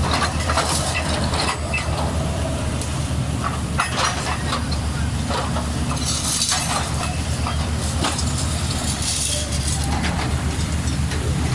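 Excavator diesel engines running steadily under load, with scattered knocks and clinks from the buckets working through broken concrete and earth. Two short rushes of hiss come about six and nine seconds in.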